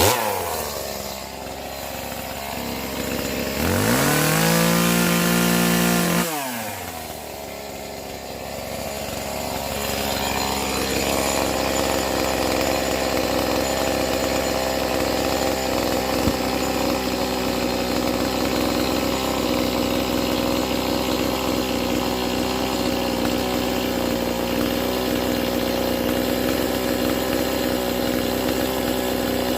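Chainsaw engine revved up sharply for about two seconds, then dropping back. From about ten seconds in it runs at a steady speed.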